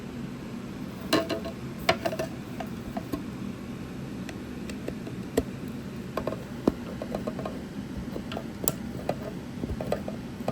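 Scattered clicks and light knocks of plastic and metal speaker parts being handled while the speaker is taken apart, over a steady low background noise.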